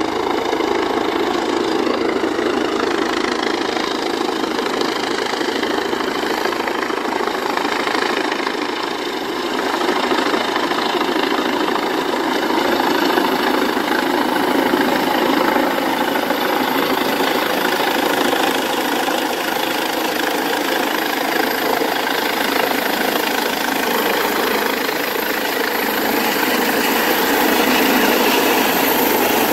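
Air ambulance helicopter coming in to land, its turbine engine and rotors making a steady, loud noise that grows louder near the end as it descends to hover low overhead.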